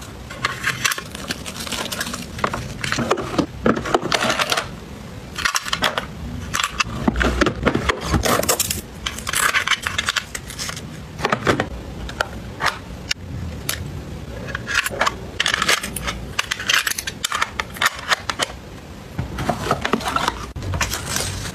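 Close-up handling sounds of restocking a plastic drawer organizer: paper alcohol-pad sachets rustling and crinkling as they are stacked in, and a metal tin and plastic drawers clicking and tapping. The sounds come in irregular bursts with many sharp clicks.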